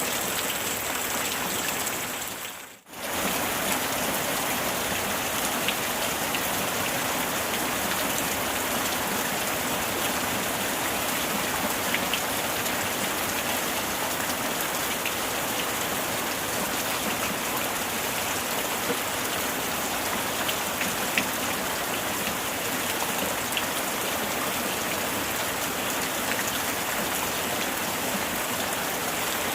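Steady heavy rainfall, an even hiss of drops with a few faint individual drop ticks. About three seconds in the sound dips almost to silence for a moment, then comes straight back.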